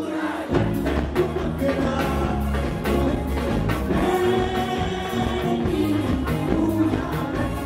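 A woman sings a Bollywood dance number over a driving beat with heavy bass. The drums and bass come in about half a second in, under her held notes.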